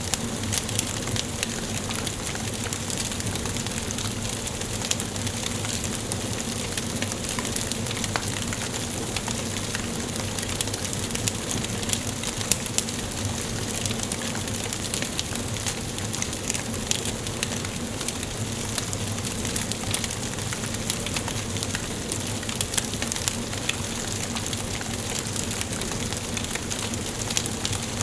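Wood fire burning in a fireplace, crackling steadily with scattered small snaps and a few louder pops.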